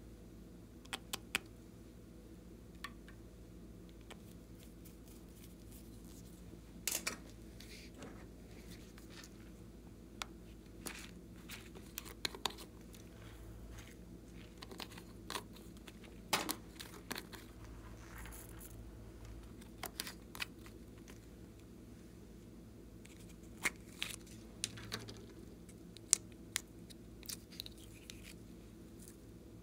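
Scattered sharp plastic clicks, taps and short crinkles from handling small bottles, caps and a plastic pouch while ingredients go into a glass dish of slime base. A faint steady hum sits underneath.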